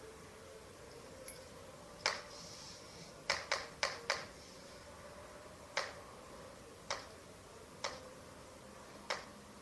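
Eurasian eagle-owl chick bill-snapping: loud, sharp snaps of the beak, one, then a quick run of four, then single snaps about a second apart. Bill-snapping is the owl's warning or threat display.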